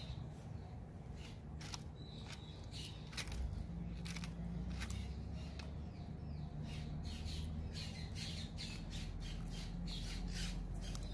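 Sulcata tortoise biting and chewing broccoli: a run of irregular crisp crunching clicks that come thicker and faster in the second half.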